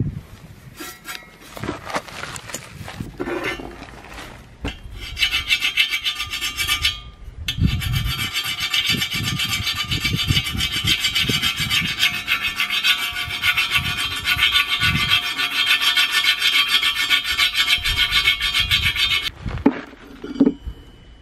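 Metal scraping on the rim of a bare steel car wheel. It starts as a few irregular strokes, then becomes a steady, continuous rasp for about twelve seconds, broken once briefly, and stops suddenly near the end.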